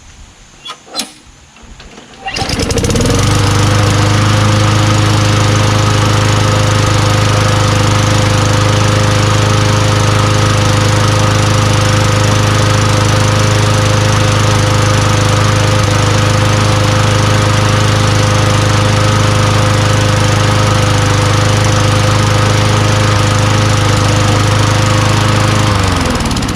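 Craftsman push mower's Tecumseh single-cylinder engine: a few short knocks, then it starts about two seconds in, rises to speed and runs loud and steady at an even pitch, its carburetor just cleaned. Near the end the engine is shut off and winds down.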